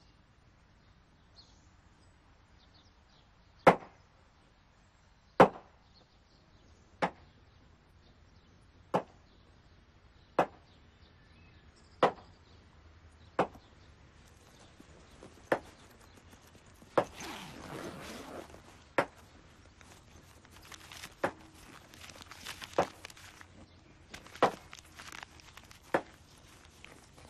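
Slow, regular chopping strokes, one sharp chop about every second and a half, fourteen in all. Paper rustles faintly in the later part.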